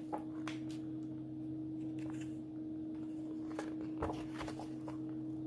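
Pages of a hardcover picture book being handled and turned, a few soft paper rustles and taps, over a steady low electrical hum.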